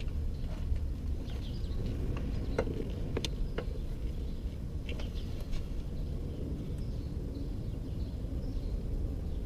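Steady low background rumble with a few sharp clicks and taps about two and a half to five seconds in, and faint bird chirps.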